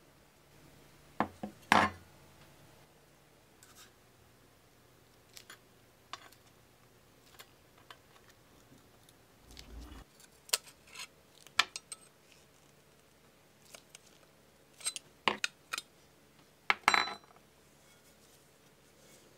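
Heavy pressed-steel parts of a 1920s Girard toy dump truck being handled on a tabletop: scattered metal clinks, taps and scrapes as pieces are picked up and set down and a screwdriver works at a bent sheet-metal tab. The sharpest clanks come about two seconds in and again around the middle and near the end.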